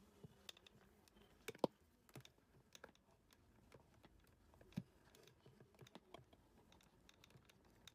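Faint, scattered small clicks and light handling noises as the damaged power cord at the base of a hair dryer is unwrapped and handled, with a sharper click about a second and a half in and another near five seconds.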